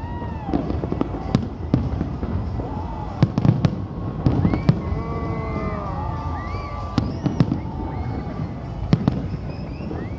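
Aerial fireworks shells bursting overhead: irregular sharp bangs over a low rumble, coming thickest about three to five seconds in and again near seven and nine seconds. Wavering tones that rise and fall run between the bangs.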